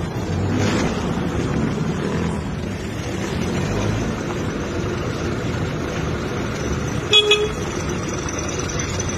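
A steady engine rumble with street noise, cut by two short vehicle-horn honks about seven seconds in.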